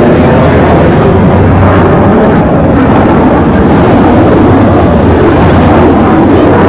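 Loud, steady low roar with no breaks, close to the top of the recording's range.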